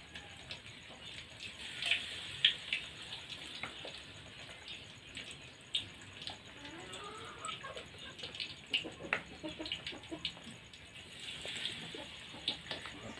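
Tempeh frying in hot oil in a wok: a steady sizzle with scattered sharp crackles and pops.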